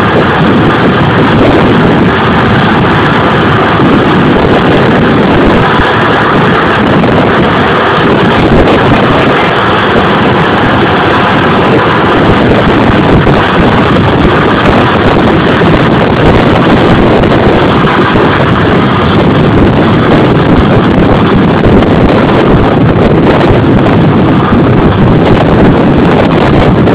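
John Deere combine harvester running steadily while harvesting, engine and threshing machinery together, with wind buffeting the microphone.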